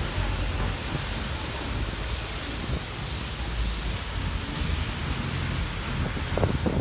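Steady hiss of a rainy city street: rain and wet traffic noise with a low rumble underneath and some wind on the microphone.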